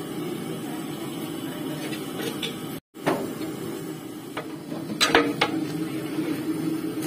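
A metal ladle knocking and scraping against a large aluminium cooking pot as raw fish pieces are mixed with turmeric and spices, a few sharp knocks about five seconds in, over a steady low hum.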